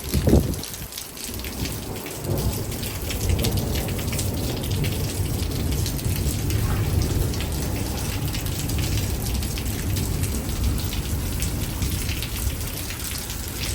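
Heavy thunderstorm rain pouring and spattering, over a steady low rumble of thunder and gusting wind.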